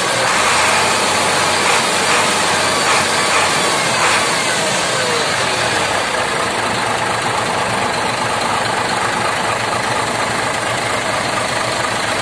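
Hino 500 truck's turbocharged diesel engine running steadily, its turbocharger howling with a thin high whine over the engine's noise.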